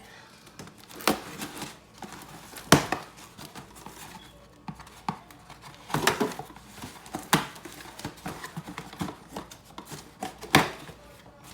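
A cardboard model-kit box being opened and its contents handled: a series of sharp knocks and taps, five loud ones among them, with quieter scraping and handling noise in between.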